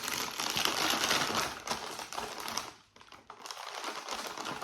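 Plastic snack packet being handled, crinkling in a dense crackle that pauses briefly about three seconds in and then goes on more quietly.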